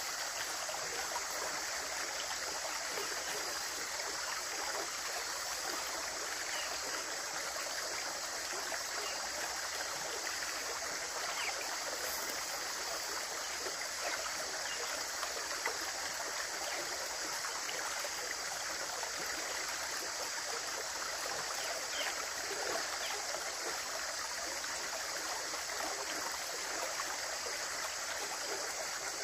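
Running water: a steady rushing flow, with small splashes and gurgles now and then.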